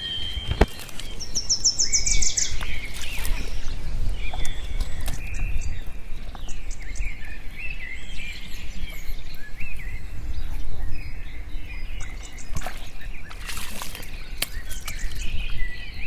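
Small birds chirping and calling repeatedly, with a brief fast trill about two seconds in, over a steady low outdoor rumble. A couple of short rushing noises come about three seconds in and again near the end.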